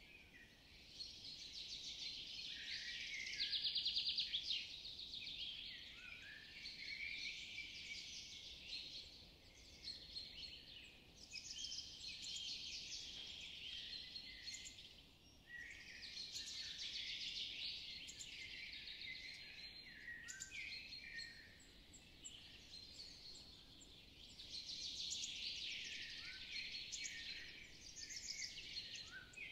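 Woodland birds singing in a dense, continuous chorus of high chirps and fast trills that swells and fades every few seconds, with one loud trill about four seconds in.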